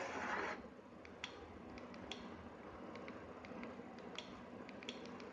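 A handful of faint, irregular clicks of remote-control buttons being pressed to move through on-screen menus, over a low hiss. TV dialogue is heard briefly at the very start and then drops away.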